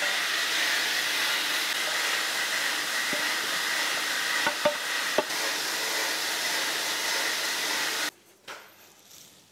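A steady hiss of rushing air, with a faint thin tone running through it, cuts off suddenly about eight seconds in. A few light clicks of parts being handled sound over it.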